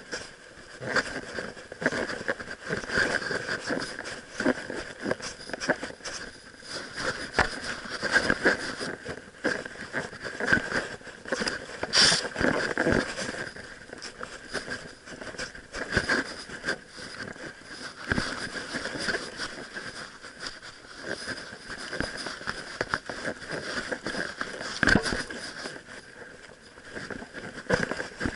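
Rubbing, scraping and knocking of an action camera strapped under a dog's chin as the dog moves about, with irregular sharp clicks throughout and two louder knocks, about twelve seconds in and near the end.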